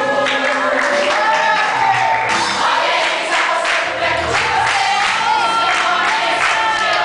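A women's church choir singing together, several voices holding long notes that bend and shift in pitch.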